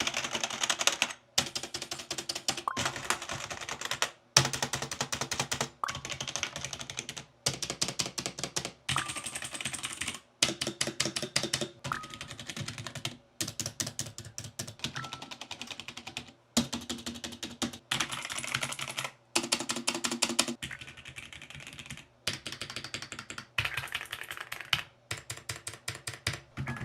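Rapid typing on a series of different computer keyboards, from cheap to expensive ones, in short runs of dense key clicks. Each run lasts about a second and a half, with a brief silent break before the next keyboard.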